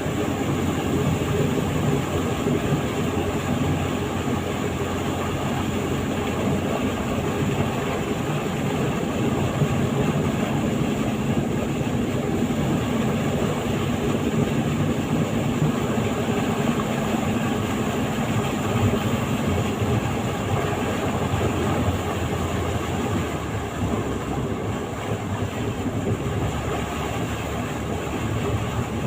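A vehicle running steadily, with a continuous engine hum under road and wind rumble; the hum grows a little stronger for a while in the middle.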